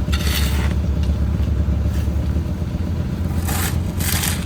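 A vehicle engine running steadily at a low pitch, with three short scraping noises over it: one at the start and two close together near the end.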